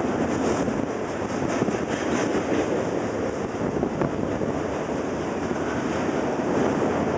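Double-stack container freight train rolling past with the steady rumble of wheels on rail, with a few faint clicks in the first couple of seconds.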